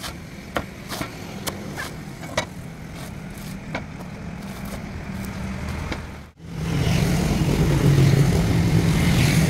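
Cleaver strikes chopping into a young green coconut's husk, a string of sharp knocks in the first few seconds, over a steady engine hum. About six seconds in, after a short break, a motor vehicle engine runs louder and steadier.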